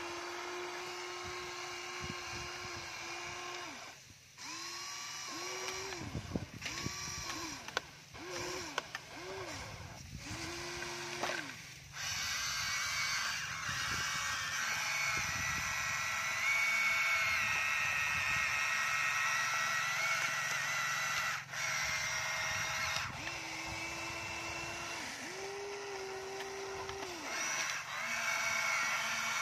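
Huina radio-controlled excavator's small electric motors whining as the arm, bucket and tracks work, the pitch rising and falling in short spurts with a few sharp knocks between. From about twelve seconds in the whirring grows fuller and steadier as the machine swings and lifts.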